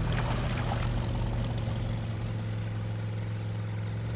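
Cartoon sound effect of a boat motor running with a steady low drone.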